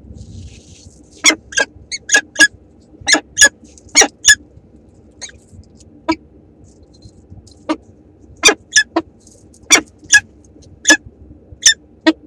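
A peregrine falcon at its nest scrape gives a series of short, sharp chipping calls, about twenty of them and often in quick pairs, as it settles onto its eggs to incubate. A faint low hum from the nest camera runs underneath.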